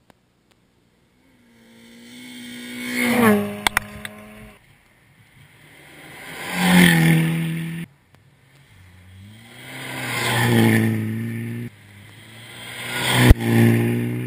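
Rally cars passing close at speed one after another, each engine note rising and swelling to a peak as it comes by and then cutting off abruptly; about four passes, with a couple of sharp cracks at the loudest moments.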